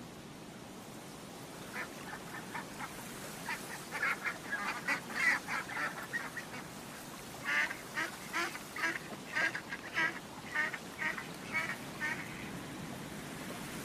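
Ducks quacking in two runs of short calls, a few a second, with a short pause between them, over a steady hiss.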